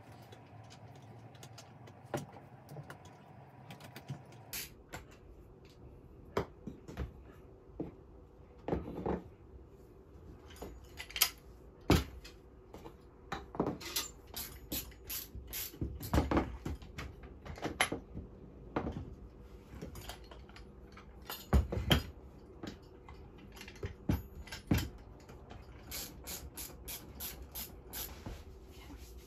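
Irregular wooden knocks, clicks and clatter as a wooden loom frame is handled, turned over and set down, with a few louder knocks among them.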